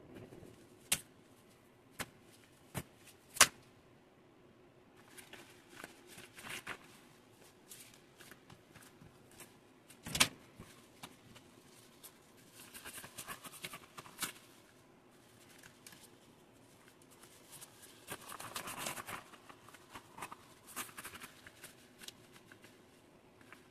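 Gloves being handled on a wooden tabletop: a few sharp taps in the first few seconds and another about halfway, with bursts of rustling as yellow rubber gloves are laid down and moved about.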